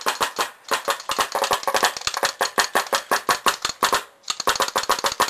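2k2 Autococker paintball marker dry-fired with no paint, shooting rapidly at about six or seven sharp pops a second, with a short break about four seconds in.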